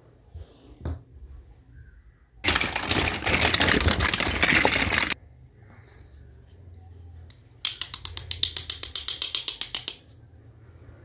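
Small plastic toy kitchen utensils rattling and clattering together in the hands, in two bursts of a few seconds each, the second a quick, even rattle.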